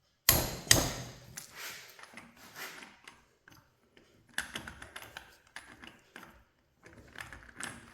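Hand wrench and metal parts of a tractor hydraulic pump being worked: two sharp metallic clicks near the start, then irregular taps, clinks and scraping.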